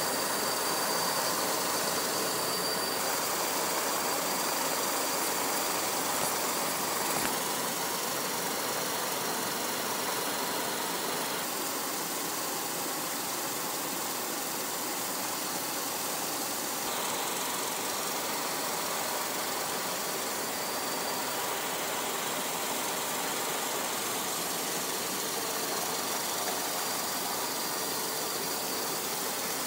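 A steady, engine-like rushing noise that changes abruptly in character several times, as at edits between clips.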